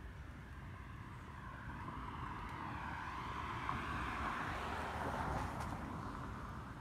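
An aircraft passing overhead: a broad rushing drone that builds up, peaks about two-thirds of the way through, then begins to fade, with a sweeping, wavering tone in it.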